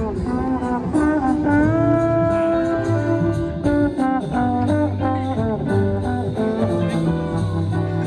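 Trombone played by a busker through a portable speaker: a jazzy melody with notes that glide and bend, over a backing track with a steady, repeating bass line.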